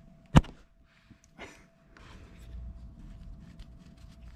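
A sharp metal click as a wrench on a nut at the fuel injector of a Yanmar 1GM diesel engine snaps loose, followed about a second later by a softer knock, then faint ticking as the high-pressure fuel line nut is spun off by hand.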